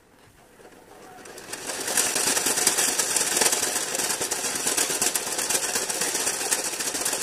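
Rollers of an outdoor roller-treadmill fitness machine clattering under running feet, building up over the first two seconds as the pace picks up, then a steady, dense rattle.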